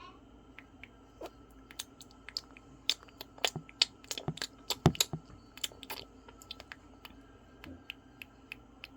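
Hamster gnawing a carrot stick: quick, irregular crisp crunches and clicks of small teeth, thickest from about one to six seconds in.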